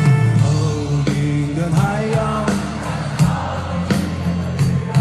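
Music with a steady beat and bass, and a voice singing over it.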